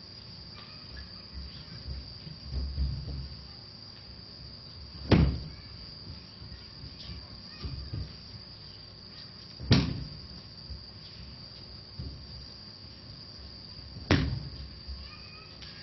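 Crickets chirring steadily, with three loud, sharp thuds four to five seconds apart as thrown aikido partners land in breakfalls on the mat. There are softer thumps of bare feet on the mat in between.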